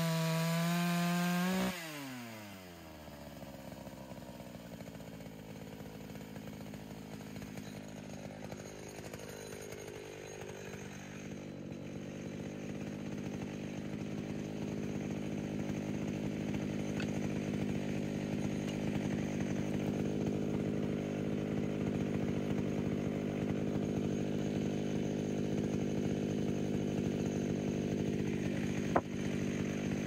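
Pioneer P60 two-stroke chainsaw at full throttle cutting lengthwise through a log in a chainsaw mill; about two seconds in the throttle is released and the revs fall quickly. The saw then idles steadily, with a single knock near the end.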